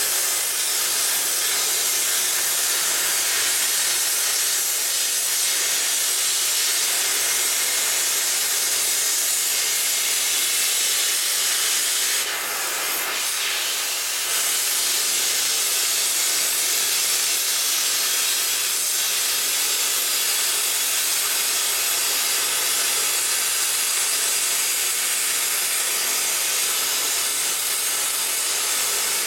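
Cutting torch hissing steadily as it cuts through steam locomotive boiler flues, briefly dropping a little quieter about twelve seconds in.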